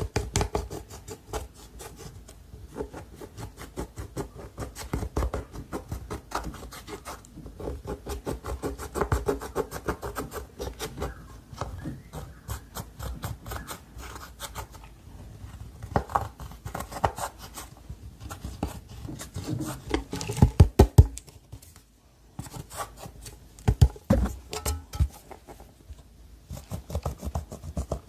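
Slime being squeezed, pressed and stretched by hand, giving a dense, irregular run of sticky clicks and crackles, with a louder cluster of sharp pops about two thirds of the way through.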